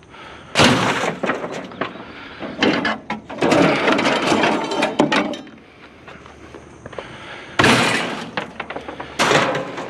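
Scrap from a discarded grill being broken apart, in four loud bursts of crashing and clattering; the longest runs from about two and a half to five seconds in.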